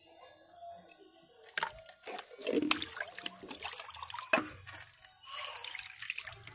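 Water splashing and pouring as shelled pond snail meat is rinsed in a steel bowl, with sharp clicks and knocks against the bowl; it starts about a second and a half in, after a quiet stretch.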